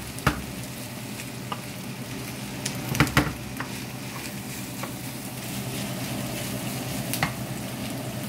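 Chopped leftover lechon pork sizzling steadily as it fries in a nonstick pan for sisig, stirred with a wooden spoon. A few sharp clacks of the spoon against the pan, a pair of them about three seconds in.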